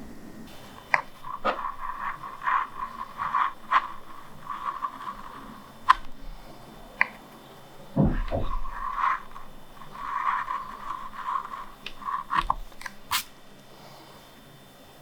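A lino cutter gouging a linoleum block in runs of short scraping strokes with small clicks, and a low thump about eight seconds in.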